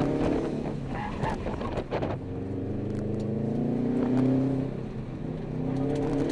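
Subaru WRX's turbocharged flat-four engine driven hard, heard from inside the cabin. After a rough couple of seconds the pitch climbs steadily, drops briefly about five seconds in, then rises again.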